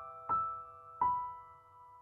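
Slow, soft solo piano music: two notes struck well under a second apart, each left to ring and fade.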